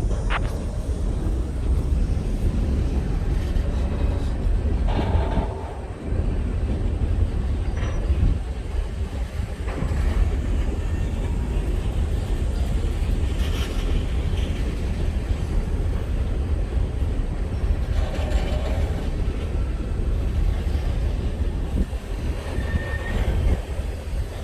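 Freight train rolling past with a steady low rumble from its wheels on the rails. Brief wheel squeals come a few times.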